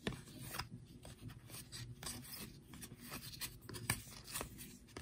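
Glossy trading cards sliding against one another as a stack is flipped through by hand: faint, irregular scuffs and light clicks of card edges.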